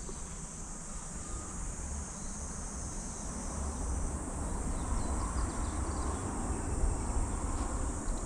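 Steady high-pitched chorus of insects such as crickets, over a low, uneven rumble.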